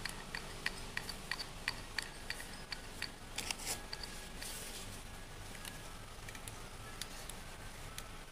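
Light, sharp clicks from a partly dismantled overhead fishing reel being handled, about three a second for the first three seconds or so. A brief rustling follows, then a few scattered clicks.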